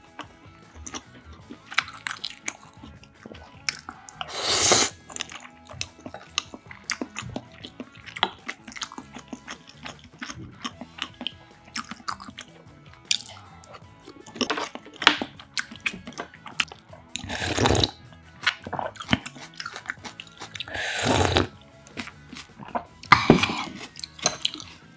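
Close-miked eating: steady chewing with wet mouth clicks, broken by about four louder slurps.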